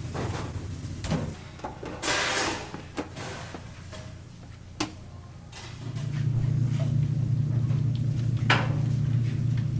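Scattered clicks and knocks, a short rush of noise about two seconds in, then a steady low hum that sets in about six seconds in and stays loud.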